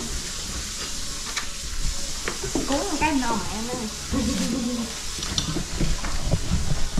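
Food sizzling as it fries in a pan, an even hiss with a few sharp clicks of utensils.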